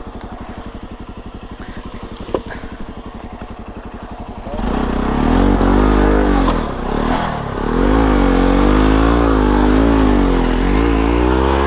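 Motorcycle engine idling with an even beat, then about four and a half seconds in revving hard, its pitch rising and falling again and again as the bike is pushed through deep mud.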